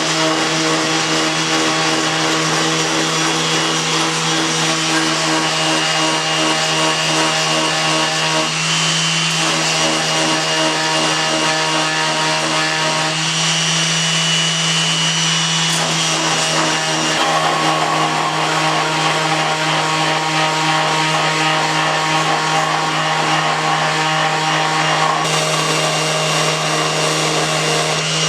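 Electric power sander running steadily with a constant hum, sanding Bondo filler and plastic adhesive on a 3D-printed PLA part; it starts up abruptly at the beginning.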